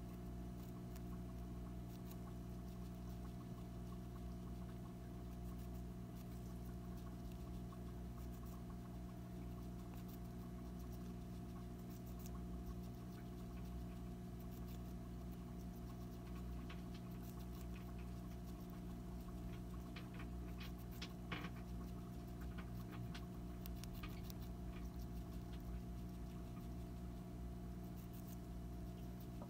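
Hamster nibbling and chewing a treat held in its paws: faint scattered small clicks, busier in the second half with one sharper click about two-thirds of the way through, over a steady low hum.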